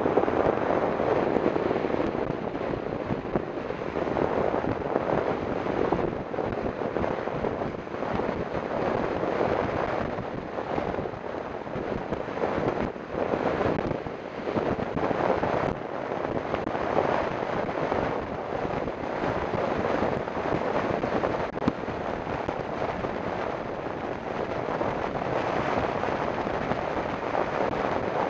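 Steady wind noise rushing over the microphone of a camera mounted on a mountain bike descending fast on an asphalt road.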